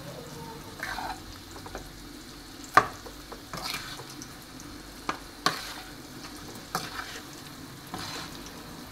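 A spatula stirring and turning cauliflower and boiled potato pieces through masala in a nonstick kadai. A low, steady sizzle of frying runs underneath, broken by several sharp knocks of the spatula against the pan, the loudest about three seconds in.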